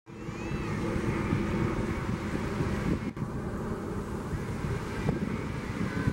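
Helicopter flying overhead: steady rotor and engine noise, heavy in the low end, mixed with wind buffeting the microphone. It cuts in suddenly out of silence.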